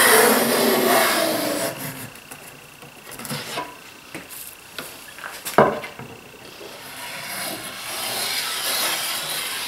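Router plane shaving a thin pass off a wooden board's edge, a dry scraping rasp for the first second and a half. The plane is then handled and adjusted, with a few clicks and one sharp knock about halfway through, before the scraping starts again near the end.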